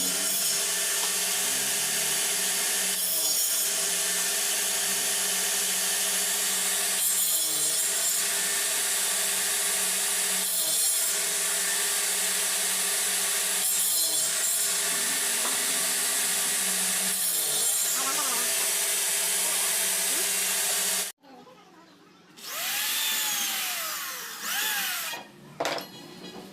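A power tool runs steadily through wood, with its sound changing roughly every four seconds as if with each pass. It cuts off abruptly about 21 seconds in, leaving a few quieter sweeping rising-and-falling tones.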